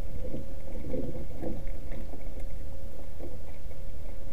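Steady low rumble of wind and water around a canoe on open water, with a thin, steady hum and a few soft handling sounds from fishing gear in the first second or so.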